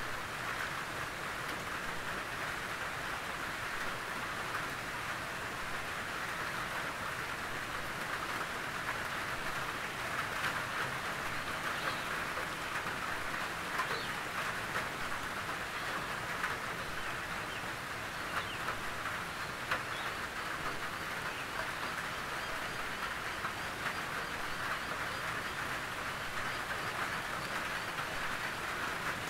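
Gentle rain falling steadily on a tin roof: an even patter with individual drops ticking sharply on the metal here and there.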